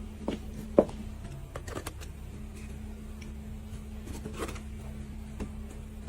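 Quiet indoor room tone with a steady low hum and a few scattered small clicks and taps; the sharpest comes just under a second in.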